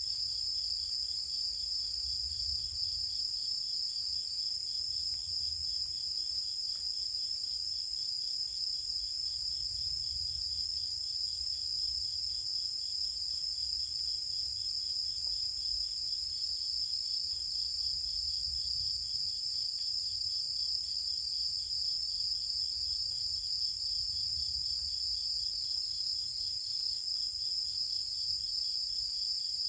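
Night chorus of insects, several high trills layered into a continuous ringing, with a lower trill pulsing rapidly beneath them. A faint low rumble sits under the chorus.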